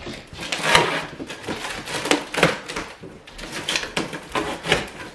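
A knife slicing along the packing tape on top of a large cardboard box, with irregular scraping and crackling of tape and cardboard.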